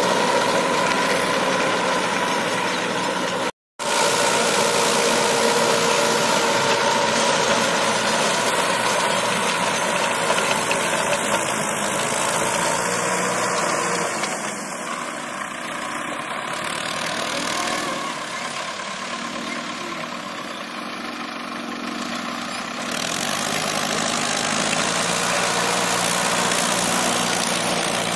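Mahindra Arjun Nova 605 DI-i tractor's four-cylinder diesel engine running steadily under load, driving a Maschio rotary tiller through dry soil. The sound cuts out completely for an instant a few seconds in. The engine is fainter for several seconds in the middle while the tractor works farther off.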